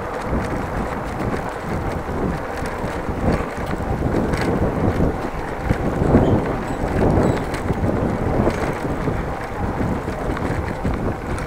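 Wind buffeting the microphone of a bicycle-mounted action camera while riding, with the rumble and light rattling of the bicycle rolling over brick paving.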